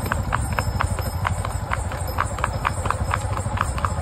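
A horse's hooves clip-clopping on asphalt in the revaal, an even ambling gait, about four hoof strikes a second. A steady low rumble runs beneath the hoofbeats.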